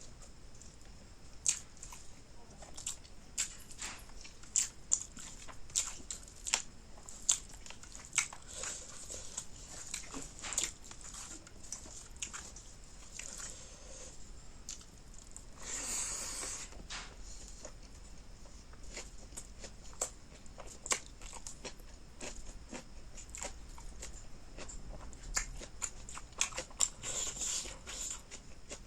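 Close-miked eating: chewing with many sharp, wet mouth clicks and smacks, and a noisy rush lasting about a second around the middle.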